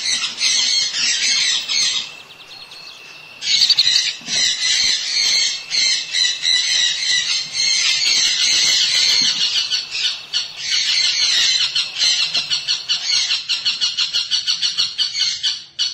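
Sun conure chicks in the nest box giving loud, harsh, rapid begging squawks, typical of chicks calling to be fed. They fall quieter for a second or so about two seconds in, then resume, and near the end the calls settle into a quick pulsing run of about five a second.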